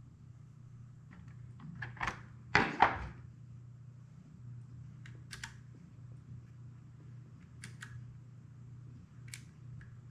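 Keychron K3 low-profile mechanical keyboard: single keys pressed one at a time, giving separate clicks every second or two, with two louder knocks about two and a half seconds in. A steady low hum runs underneath.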